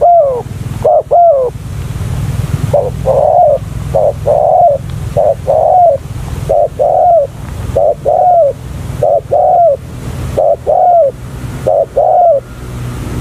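Spotted doves cooing: a steady run of short, arched coos, mostly in close pairs repeating about every second and a half.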